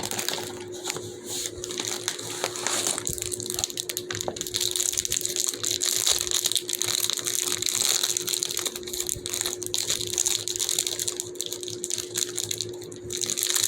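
Thin plastic bags crinkling and rustling as small fidget toys are pulled out of them, a dense crackly rustle that goes on throughout.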